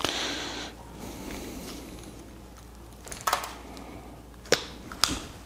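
Hand cutter snipping through irrigation valve wire to leave a clean cut end: a brief rustle of handling at the start, then a few sharp clicks about three, four and a half and five seconds in.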